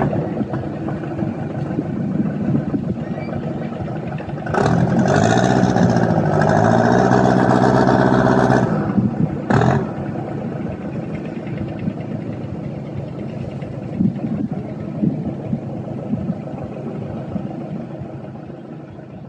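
A Mitsubishi 4D31 four-cylinder diesel in a wooden cargo boat running steadily. From about four and a half to eight and a half seconds in, a much louder pitched sound rises and falls in pitch and stops abruptly, with a short repeat about a second later.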